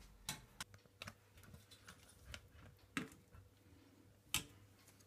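Metal spoon clinking against a stainless-steel soup pot during stirring: about seven scattered sharp clicks, the loudest near the end.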